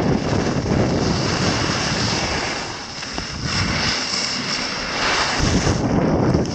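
Wind rushing and buffeting over the microphone of a camera carried down a ski slope at speed, mixed with the hiss of snow under the filmer's skis or board. The rush eases for a moment about three seconds in, then picks up again.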